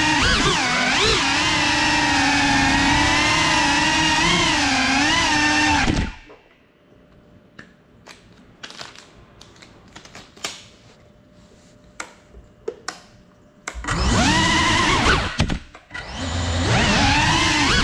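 A GEPRC 3.5-inch cinewhoop's brushless motors and ducted propellers whining, the pitch wavering up and down with the throttle. About six seconds in the motors cut off, leaving a faint stretch with a few small clicks. Near the end they spin back up with a rising whine.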